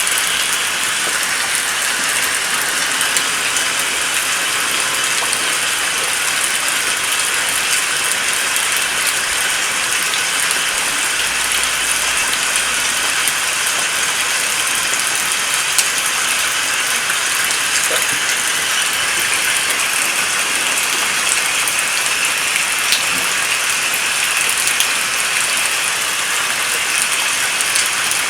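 Steady rain falling: an even hiss of densely pattering drops, with a few louder single drips standing out.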